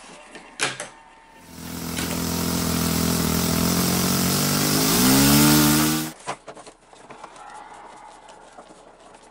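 Radio-controlled model airplane flying, its motor and propeller running loudly; the pitch rises about four seconds in as the throttle opens, then the sound cuts off abruptly. Before and after it there are small handling clicks from work on the model at a bench.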